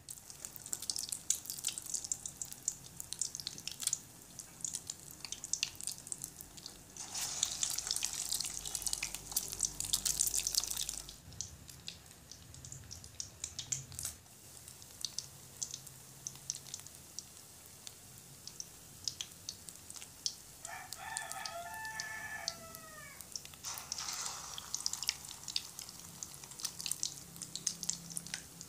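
Egg-coated bread rolls frying in hot oil in an aluminium pan: a steady crackling sizzle that grows louder for a few seconds about a quarter of the way in. About two-thirds of the way through, a drawn-out pitched call of about three seconds, falling at its end, sounds over the frying.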